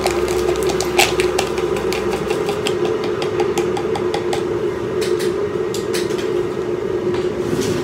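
Electric kettle heating water, a steady rumbling hum, with a run of light clicks and taps from handling a cup and a coffee sachet, one sharper knock about a second in.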